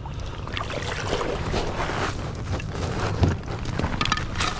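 Wader-clad angler clambering out of a river onto a snow-covered ice shelf: water sloshing around the waders and crusty snow crunching under knees and hands, with a heavier thump about three seconds in and wind buffeting the microphone.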